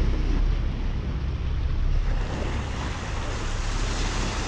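Wind buffeting the microphone over the steady wash of sea water and waves.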